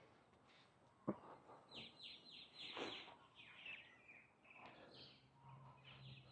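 Faint birds chirping, a run of quick falling chirps from about two seconds in, with a sharp click about a second in.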